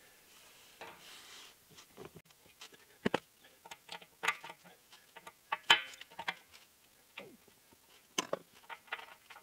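Steel wrench clinking and scraping on a nut and pipe fitting at a tank's drain: a string of irregular sharp metal clicks and taps, the loudest about three seconds in and again a little over five and a half seconds in.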